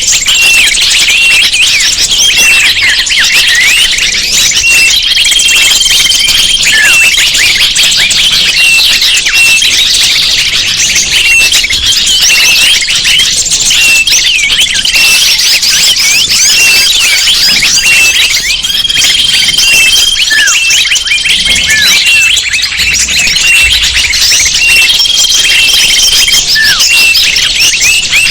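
Bird-lure (pikat) recording: a dense chorus of many small birds chirping and twittering over one another, with a held high whistle note that comes back every few seconds.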